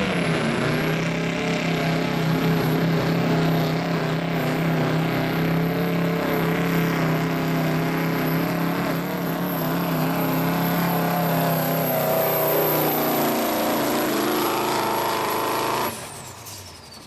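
Turbocharged diesel pickup truck pulling a weight sled at full throttle, engine running hard under load with a high turbo whistle over it. Late in the pull the engine note sags lower as the sled slows it, then about a second before the end the throttle comes off, the sound drops sharply and the turbo whistle winds down.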